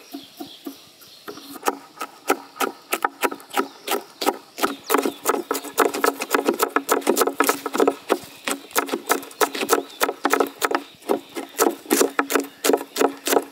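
Kitchen knife rapidly chopping green chillies on a wooden board: a quick run of sharp chops, several a second, starting about a second in.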